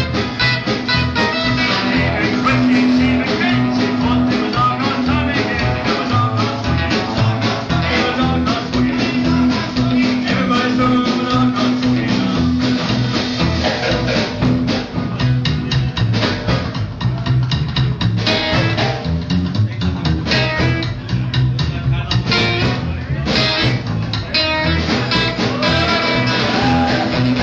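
Rockabilly music: guitar over a steady beat.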